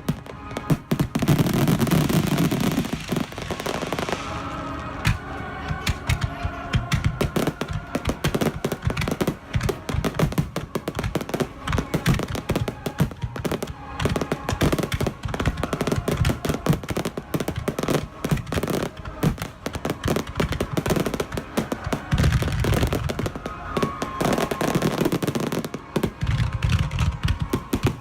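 Fireworks bursting and crackling in rapid, continuous succession, with music playing underneath.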